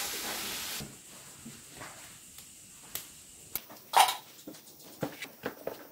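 A wire whisk stirring flour and water in a stainless steel bowl, a steady hiss that stops about a second in. Then come scattered light scrapes and clicks as a hand works the flour into a stiff dough against the bowl, with one louder sharp sound about four seconds in.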